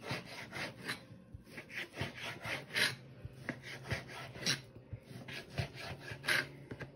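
Kitchen knife sawing through raw bacon slices and scraping on a plastic cutting board, a continuous run of short strokes, several a second, a few of them louder.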